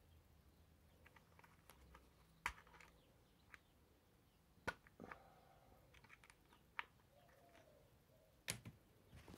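Near silence with a handful of short, sharp clicks and taps scattered through it, from small tools and parts being handled during a lawnmower wheel-bearing job.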